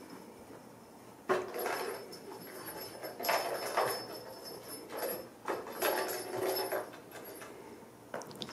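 Hollow clear plastic hamster ball rolling and bumping across a rug and wooden floor as a kitten paws and chases it, in several rumbling rolls of about a second each.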